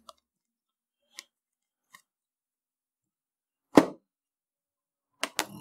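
Sparse handling noises as a bag of wrapped meat is packed: a few faint taps, one loud thump a little under four seconds in, and two sharp clicks just before the end.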